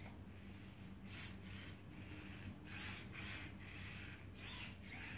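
Robi robot's servo motors whirring in short bursts as it steps backward, several bursts in a row, roughly one per leg movement.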